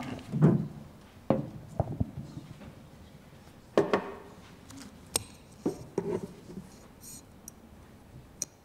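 Microphone and lectern handling noise: a series of knocks, bumps and clicks with some rustling, the loudest bump about four seconds in and a sharp click a second later.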